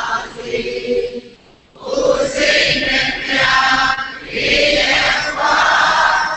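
Buddhist chanting in Pali, a steady recited chant with a short break about a second and a half in before it resumes.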